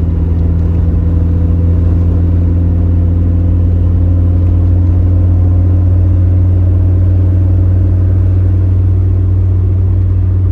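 Toyota Corolla TE72's four-cylinder engine running steadily with a loud, low drone. A higher tone in it eases slightly upward partway through.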